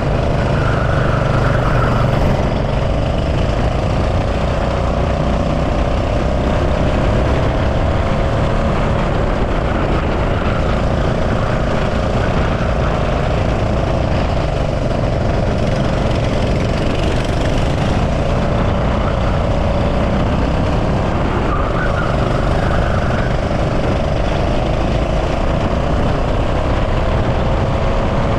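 Go-kart engine running hard through a lap, its pitch rising and falling again and again as the kart accelerates out of corners and slows into them. It sits over a constant low rumble.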